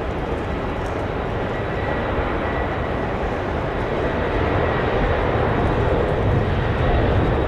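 Airbus A350-900's Rolls-Royce Trent XWB turbofans running at high power on the takeoff roll: a steady jet roar that grows gradually louder.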